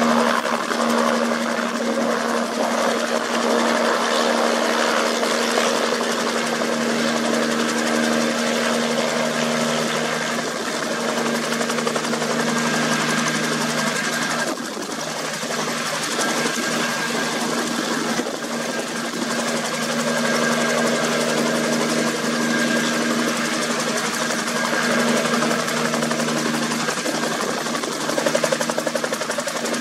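Bell 47G2 helicopter running at hover power, its 260 hp Lycoming piston engine and two-blade main rotor giving a loud, steady mechanical chatter as it lifts off and hovers low.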